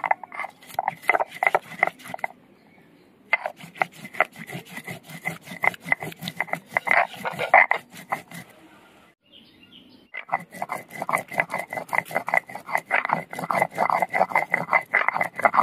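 Stone roller grinding cumin, ginger and red chillies into a wet paste on a flat grinding stone (sil-nora): rapid, rhythmic scraping strokes of stone on stone. The grinding comes in three bouts, with short pauses about two seconds in and about eight and a half seconds in.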